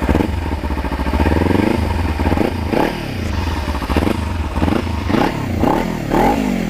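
Kawasaki Ninja 300's parallel-twin engine revved through an Akrapovic exhaust with its dB killer fitted: a run of throttle blips, the pitch rising and falling, coming quicker toward the end.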